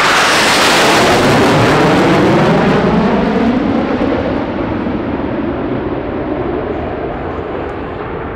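A pair of Eurofighter Typhoon jets, twin Eurojet EJ200 turbofans each, flying past at high speed. The jet noise is loudest about a second in, then drops in pitch and fades as the jets fly away.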